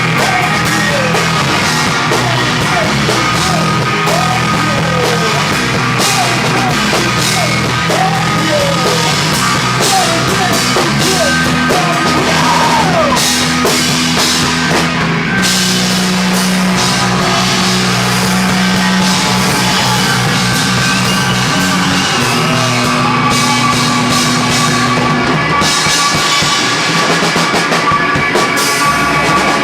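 Live rock band playing loud, with a drum kit driving the beat and held low notes that change every few seconds.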